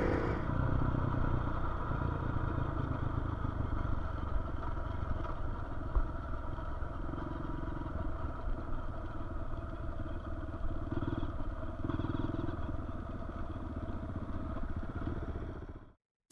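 Dirt-bike engine running steadily on the move, with road and wind noise. Its pitch swells a little with the throttle a few times. The sound cuts off abruptly near the end.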